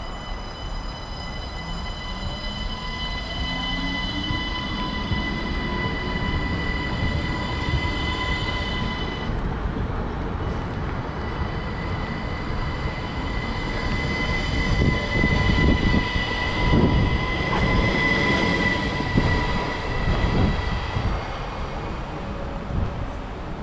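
NMBS/SNCB AM08 (Siemens Desiro) electric multiple unit accelerating past: the traction motors give a whine that rises in pitch over the first few seconds, over steady high electrical tones. Then the rumble of the wheels on the rails grows louder as the carriages pass close by.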